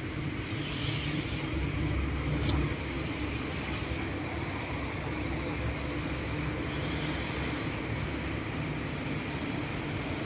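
Steady outdoor background rumble of distant road traffic, with one faint tick about two and a half seconds in.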